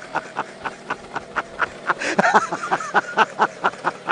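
A man laughing in a long, even run of short bursts, about four a second, with a drawn-out voiced stretch in the middle.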